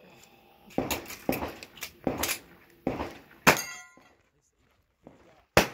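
A string of .45 ACP pistol shots from an M45A1 1911, sharp cracks coming about every half second. About three and a half seconds in, one shot is followed by a steel target's ringing. After a short pause the shots resume near the end.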